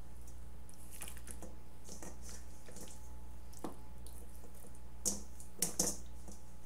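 Raw, oil-coated chicken pieces being handled and moved by hand, giving soft wet squelches and small scattered clicks. A few sharper clicks come about five seconds in. A faint steady low hum runs underneath.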